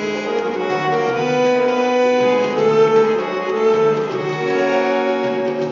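Instrumental background music: a slow melody of long held notes over steady lower tones.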